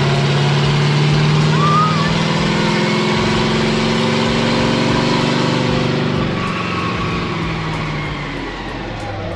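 Heavy truck engine running steadily, its note slowly dropping in pitch and fading over the last few seconds as it slows.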